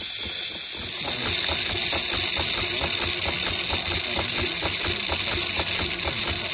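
Scale-model Foster traction engine's steam engine in steam: a steady hiss of steam, then about a second in the engine starts running with a rapid, even beat.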